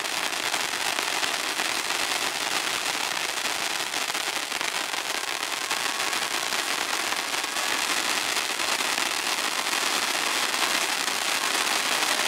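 Ground fountain fireworks spraying sparks, giving a steady hiss full of fine crackling.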